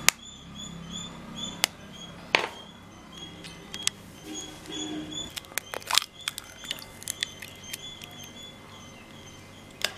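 A hen's egg being tapped against a knife blade and cracked open over a glass baking dish: a series of sharp clicks and taps of shell, with a quick cluster of them about two-thirds of the way through as the shell breaks.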